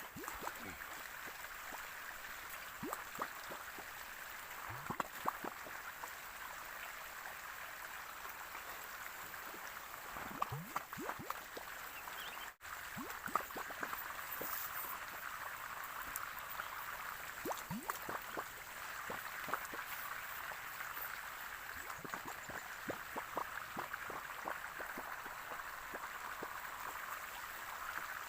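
Water running and gurgling steadily, with many small bubbling plops throughout.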